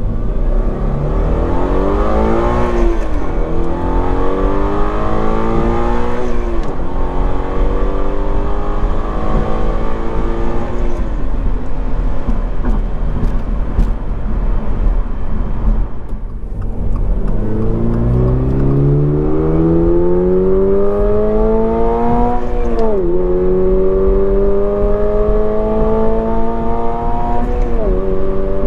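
The 2.4-litre boxer four of a 2022 Toyota GR86, heard inside the cabin, accelerating hard through the gears: the pitch climbs and drops at each upshift, three times in the first half, with only the real engine and exhaust sound while the active sound controller is unplugged. After a short break about halfway through, a second pull through two upshifts has the active sound controller's pre-recorded engine note piped through the cabin speaker, giving a clearer, stronger tone.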